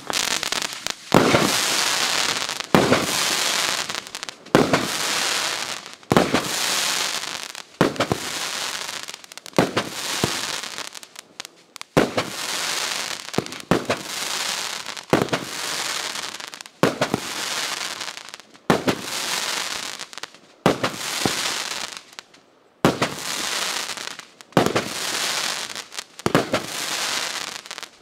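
A 19-shot 30 mm fireworks battery firing shot after shot, about one every one and a half to two seconds. Each sharp bang is followed by a second or so of dense crackling from its crackling palm stars.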